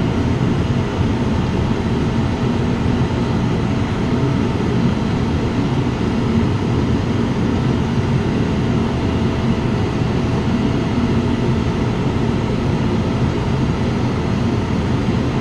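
A steady mechanical drone with a faint high whine running through it, unchanging throughout.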